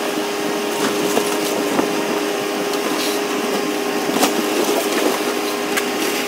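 Demolition excavator running with a steady hydraulic whine while its sorting grapple crushes and breaks house debris, giving several sharp cracks; the loudest comes about four seconds in.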